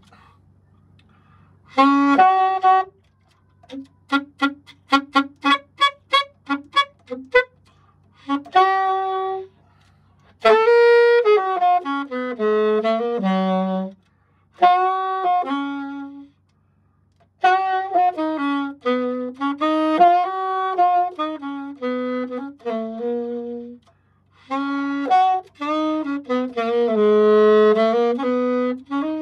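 Yamaha YAS-280 alto saxophone played solo in phrases with short pauses: a run of quick staccato notes a few seconds in, then longer held melodic lines. The new horn is being test-played; the player finds some notes slightly off pitch and thinks it needs adjusting.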